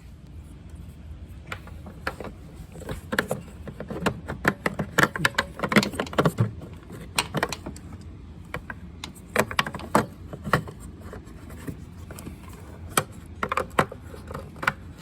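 Irregular sharp clicks and light rattles of small plastic and metal parts being handled as a tail-light bulb is swapped, busiest in the middle and thinning out towards the end.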